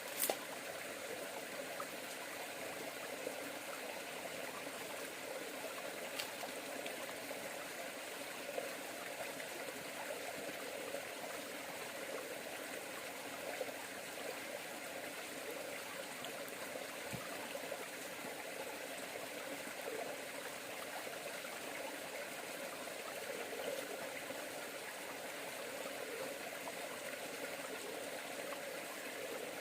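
River water flowing steadily, with a sharp click just after the start.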